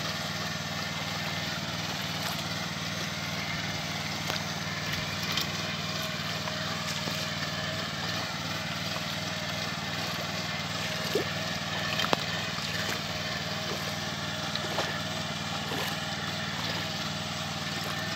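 Small engine of a walk-behind rice transplanter running steadily under load as the machine works through a flooded paddy, with a couple of sharp clicks near the middle.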